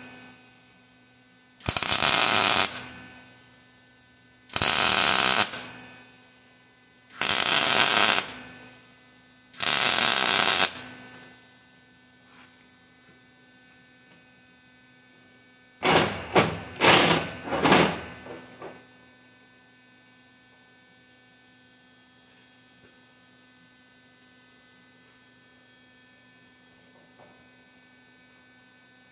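MIG welder arc crackling in four tack welds of about a second each, one on each link of a steel timing chain, then a run of short sputtering bursts. A steady electrical hum runs underneath and is left on its own after the welding stops.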